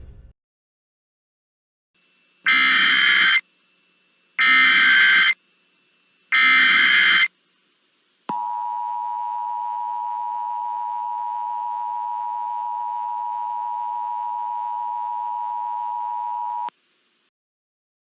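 Emergency Alert System test signal: three short bursts of digital data tones (the SAME header), each about a second long and a second apart. Then a steady attention tone holds for about eight seconds and cuts off sharply.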